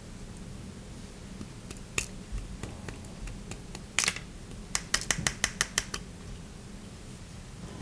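Slime being played with by hand, giving sharp clicking pops: a couple of single pops, then a quick run of about seven pops in just over a second near the middle.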